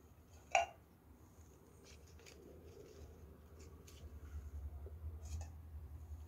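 Faint handling noise from a bunch of pothos cuttings held and turned in the hand: soft rustles and small clicks, with one sharper click about half a second in. A low hum underneath grows louder in the second half.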